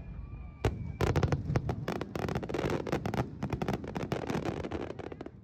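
Fireworks going off: a rapid, dense run of crackling pops, with one sharp bang under a second in, thinning out near the end.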